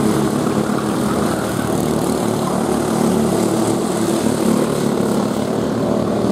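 Several racing go-karts' 5 hp Briggs & Stratton Raptor flathead single-cylinder engines running flat out together in a steady, overlapping buzzing drone.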